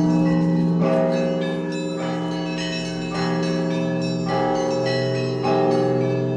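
Russian Orthodox monastery bells ringing, several bells of different pitches sounding together. Smaller bells are struck about once a second over the long, steady hum of the larger bells.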